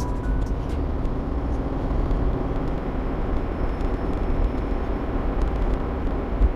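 Steady road and engine noise of a car driving, heard from inside the cabin, with a low rumble.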